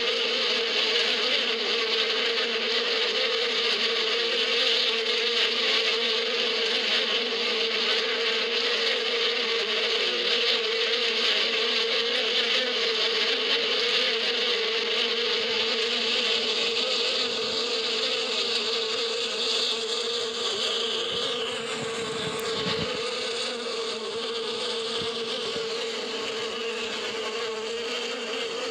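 Dense drone of many honeybees flying around the entrance of a hive. A steady, unbroken buzz that softens a little in the second half.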